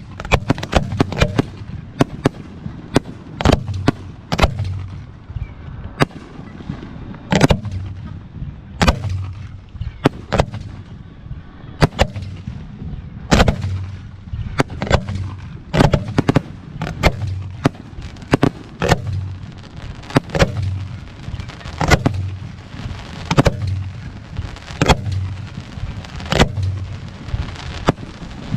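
Aerial fireworks display: shells bursting one after another in many sharp bangs over a low rumble, thickest in the first couple of seconds and again through the second half.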